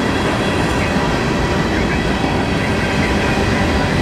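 Freight cars of a passing train rolling by close at hand: a steady rumble of steel wheels on the rails.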